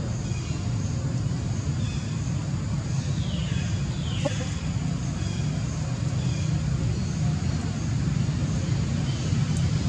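Steady low outdoor rumble throughout, with faint high chirps scattered over it and two short falling whistles about three and four seconds in.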